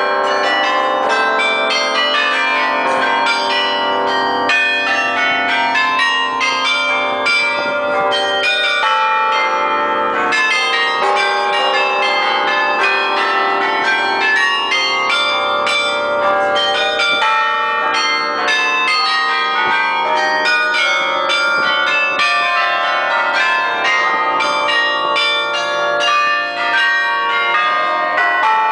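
Bruges Belfry carillon playing a tune on its automatic mechanism: bronze bells struck one after another by wire-pulled hammers, several notes a second, each ringing on into the next. Heard close up, from inside the bell chamber.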